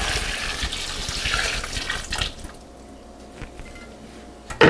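Water running from a tap for about two seconds, then shutting off, as filtered water is drawn to top up a stock pot. A sharp knock near the end.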